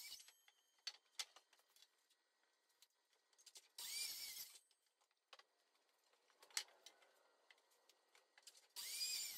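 Two short, faint bursts of a miter saw cutting a white pine board, about four seconds in and again near the end, with near silence and a few small clicks between them.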